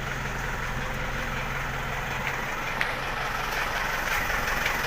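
2000 Isuzu Highlander engine idling steadily, just started on a recharged battery after a weak battery had left it only clicking.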